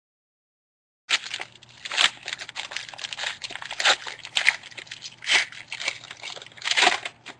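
Foil wrapper of a trading-card pack being torn open and crumpled, a run of irregular crinkling and ripping sounds starting about a second in.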